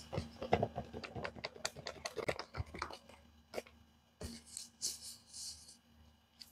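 Paper crinkling and crackling as a handmade paper blind bag is handled and opened: a dense run of crackles for about three seconds, then a few separate taps and some short rustling swishes.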